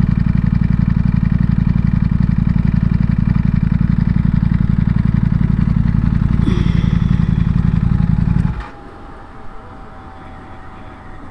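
Ducati Panigale V4 motorcycle's V4 engine idling steadily, then switched off about eight and a half seconds in, leaving only quiet background.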